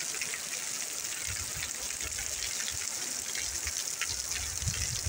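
Rain falling steadily: an even hiss with many small drop ticks scattered through it.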